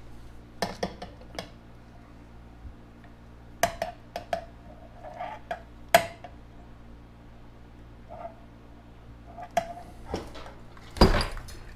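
Hand wire stripper clicking and clinking against a lamp's metal base as the ground wire is stripped: scattered short clicks, with the loudest knock near the end.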